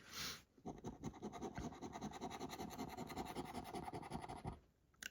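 Scratch card being scratched: a short scrape at the start, then about four seconds of fast, steady scraping at the coating, stopping shortly before the end.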